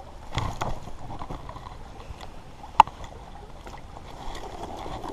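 Stream water sloshing and splashing around a hand lowering a small brown trout into the water to release it. A sharp knock comes a little under three seconds in.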